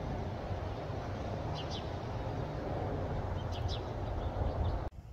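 Low, steady rumble of an Airbus A320 airliner flying overhead on its landing approach, with birds chirping briefly twice. The rumble cuts off suddenly just before the end.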